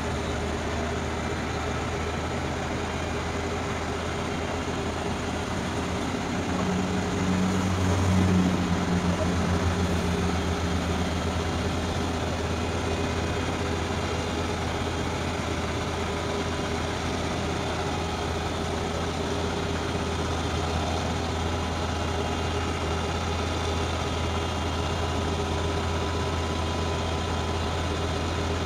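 Diesel engine of a Demag AC 615 all-terrain crane running steadily while the boom is luffed down. It swells louder for a few seconds about seven seconds in, then settles back to a steady drone.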